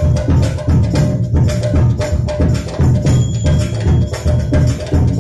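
Live percussion-led music: a laced barrel drum played in fast, even strokes, with a steady held note sounding underneath.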